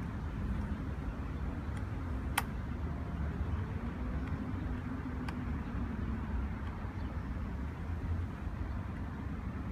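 Steady low background rumble, with a sharp click about two and a half seconds in and a fainter one about five seconds in as a screw is driven into the ab machine's frame by hand.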